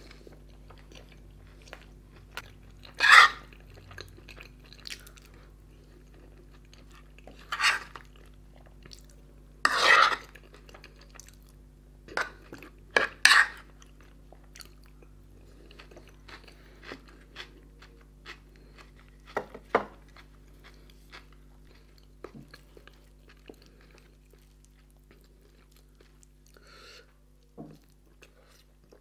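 Close-miked eating of naan and curry: chewing and mouth smacks, with about eight sharp louder clicks in the first twenty seconds and a spoon scraping a serving dish. A faint steady hum runs underneath.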